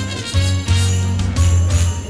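Christmas pop music: sleigh bells shaken in a steady rhythm over a heavy, pulsing bass line.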